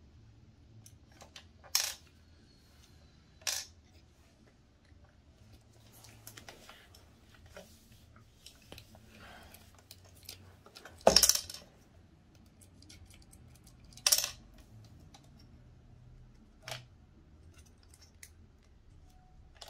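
Small screws and plastic parts being handled as a Snoo motor housing is unscrewed: faint clicks and scrapes, and about five sharp metallic clinks of small screws dropping onto the hard plastic base, the loudest about halfway through.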